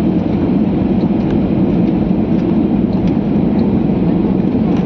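Steady, dense rumble of a vehicle in motion, with a few faint ticks.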